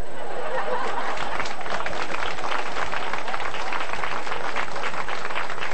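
Audience applauding: many hands clapping in a dense, steady patter that starts as the spoken verse ends.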